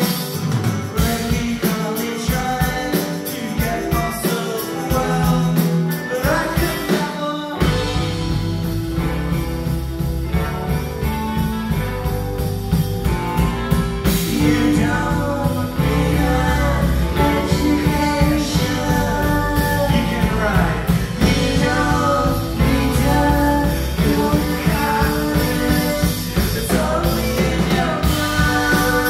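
Live rock band playing with a singing voice over guitars; the bass and full low end come in abruptly about seven and a half seconds in and carry on steadily.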